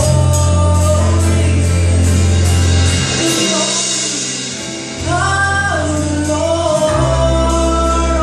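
Live gospel song: a woman singing lead with a band of guitars and bass, loud held bass notes under the voice. The bass drops out for about two seconds in the middle, then comes back.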